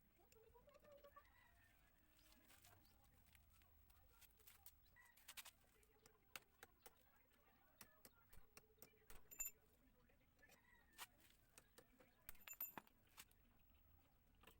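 Near silence: faint background with scattered light clicks and taps.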